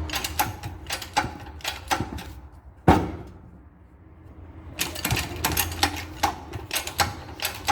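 Irregular metallic clicks and knocks from a press forcing a new rubber bushing into a car's front control arm, with one sharp, louder knock about three seconds in, a short pause, then the clicking resumes.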